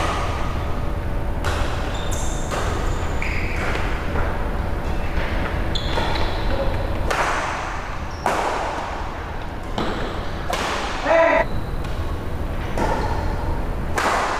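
Badminton rally: rackets striking a shuttlecock in sharp smacks, irregularly about once a second, over a steady low hum.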